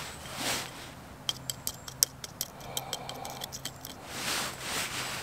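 Irregular run of about fifteen light, sharp clicks and taps over roughly three seconds from a small wooden-handled hand tool being handled, set between soft rustles of clothing.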